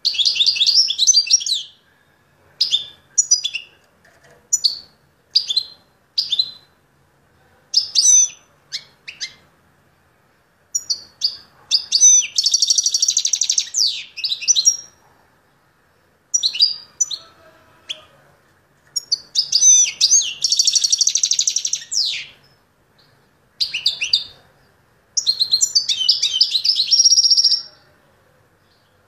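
Caged finch singing: short chirps and brief phrases, then three longer twittering songs of two to three seconds each in the second half.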